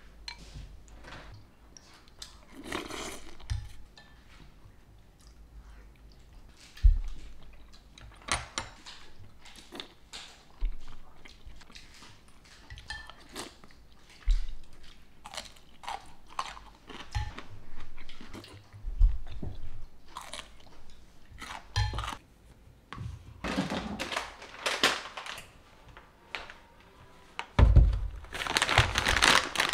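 Mealtime sounds: chewing, with a spoon knocking and clinking against a ceramic soup bowl and dishes being set down in many short, scattered knocks. Near the end, a louder stretch of plastic food packaging being handled.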